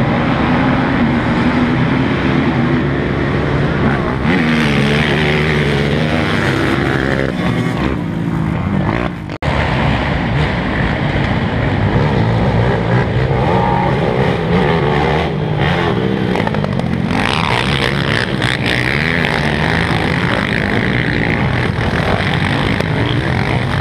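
Several racing ATV engines revving up and down as the quads run the track, loud and continuous. The sound cuts out briefly about nine seconds in.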